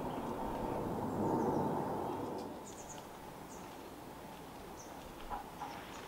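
A small bird gives short, high, thin chirps: three in quick succession about two and a half seconds in, then single notes, with a few faint taps near the end. Underneath is a low, steady outdoor rumble that drops in level about two and a half seconds in.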